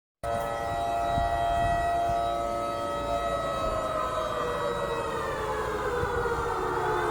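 Civil-defence (air-raid) siren wailing to signal the nightly lockdown curfew. Its several tones hold steady for about three seconds, then slowly fall in pitch, with a brief cut-out right at the start.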